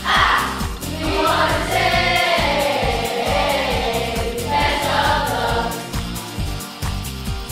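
Music: a choir singing over a steady beat.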